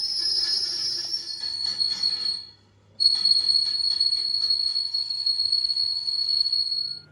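A loud, steady high-pitched metal squeal with a fine rattle, from power-tool work on a steel truck rim. It stops abruptly about two and a half seconds in, starts again half a second later, and cuts off near the end.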